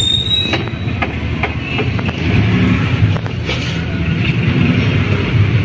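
A tricycle's motorcycle engine running steadily at idle, a continuous low rumble.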